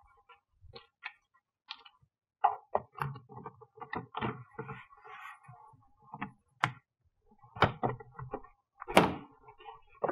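Plastic frunk trim pieces on a Tesla Model S being handled and pressed down so they snap into their clips: scattered clicks and knocks with scuffing in between, the loudest snap about nine seconds in.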